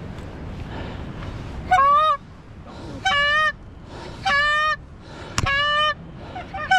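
Canada goose honks: three loud, short honks about a second apart, then more starting near the end, over a steady low rush of wind. A single sharp crack sounds about two-thirds of the way through.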